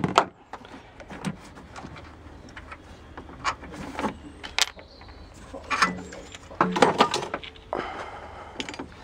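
Irregular metallic clicks, clinks and knocks of hand tools on car engine parts: a 10mm socket and a large ring spanner being worked around the power steering fluid reservoir.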